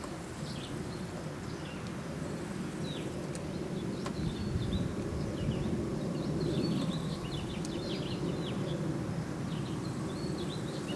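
Spinning fishing reel being cranked, a steady whirring hum, as a small catfish is reeled in. Small birds chirp over it in quick high notes, more of them after the first few seconds.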